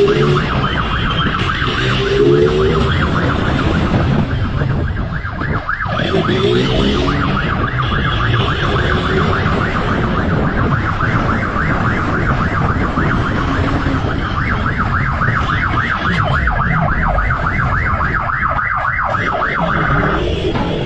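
Electronic siren on a fast yelp, a high warbling tone repeating several times a second, over the rumble of a motorcycle engine and wind at speed. The siren stops shortly before the end.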